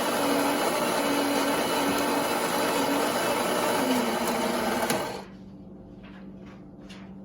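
Automatic coffee machine's built-in grinder grinding coffee beans for a cappuccino, a steady mechanical whirr that cuts off abruptly about five seconds in. After it stops there is a faint low hum and a few soft clicks.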